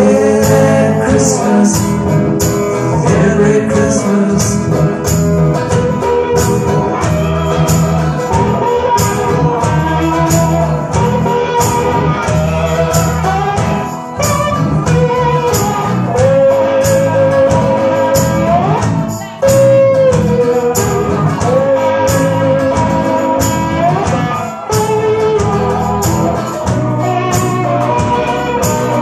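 Live rock band playing a song on electric guitars, bass guitar and drum kit, with a steady cymbal beat about twice a second. Over it runs a lead melody of long, bending notes.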